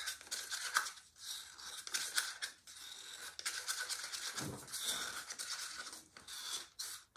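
A plastic stick stirring acrylic paint and Owatrol medium in a paper cup, scraping against the cup's sides and bottom in repeated strokes.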